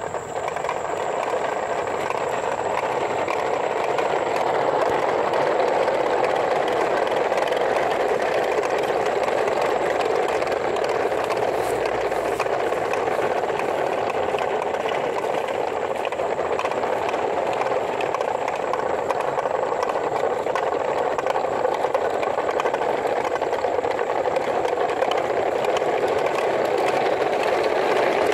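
Plastic toy dump trucks' wheels rolling over dirt and gravel: a steady, continuous rattling crunch.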